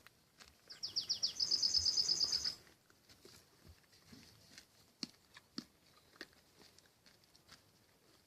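A small songbird sings one short song about a second in: a few quick falling notes, then a fast, even trill of about a dozen high notes. Faint scattered clicks and ticks sound before and after it.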